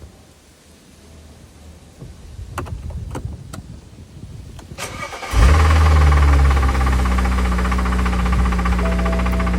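BMW N54 twin-turbo inline-six: a few clicks, then the engine starts about five seconds in and settles to an idle with a fast rhythmic knock. The owner can't tell whether the knock comes from a faulty AC compressor or is rod knock.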